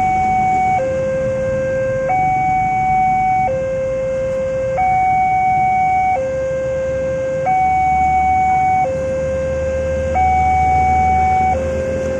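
Railroad level-crossing warning alarm sounding a slow two-tone signal: a lower and a higher electronic tone take turns, each held about a second and a half, warning that a train is coming. Engine rumble from waiting road traffic sits underneath and grows louder past the middle.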